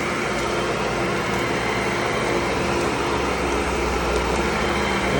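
Tennant commercial vacuum cleaner running steadily: an even rush of air with a constant motor hum and a steady higher tone.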